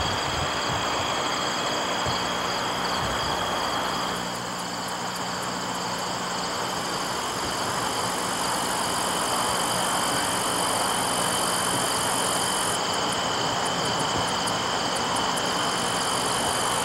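Parked Santa Fe GE diesel locomotives idling: a steady engine drone with a thin, high steady whine over it.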